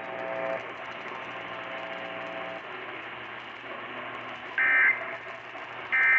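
Radio broadcast hiss and static, then about four and a half seconds in two short bursts of EAS end-of-message data tones, the warbling "NNNN" code sent at the close of an alert test, about 1.3 seconds apart.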